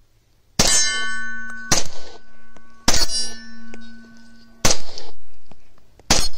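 Glock 35 pistol fired five times at a steel target, the shots a second or more apart. Between shots the struck steel rings on with a steady metallic tone.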